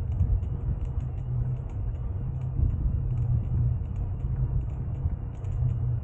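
Steady low rumble of a bicycle riding along a forest path, its tyres rolling over the ground, with faint light ticks scattered through it.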